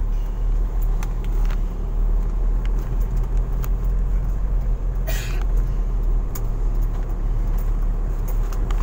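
Engine and road noise inside a moving car's cabin: a steady low rumble with scattered small clicks and rattles, and a brief hiss about five seconds in.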